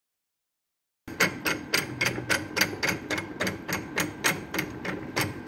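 Fishing-line spooling machine winding line onto a reel spool, its mechanism clicking sharply and evenly, about four clicks a second, over a low hum. The clicking starts after about a second of silence.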